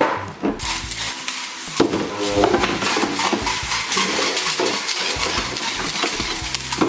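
Metal-ringed spinning tops whirring and clattering in a plastic stadium, with a dense run of metallic clinks and scrapes as they knock against each other and the bowl walls.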